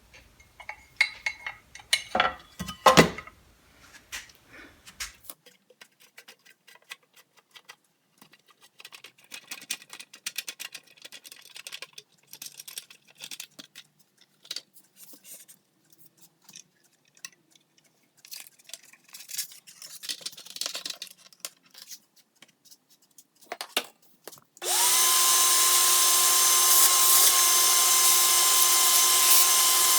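Tools handled and knocked against metal, with a few sharp hits about two to three seconds in. Near the end a power tool starts abruptly and runs at a steady pitch with a whine.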